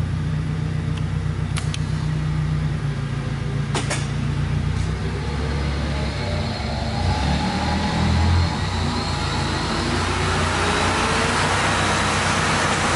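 Ema F121 single-spindle shaper being switched on after wiring: a steady low electric hum with a couple of clicks, then from about seven seconds in the spindle motor spins up, its whine rising steadily in pitch as it comes up to speed.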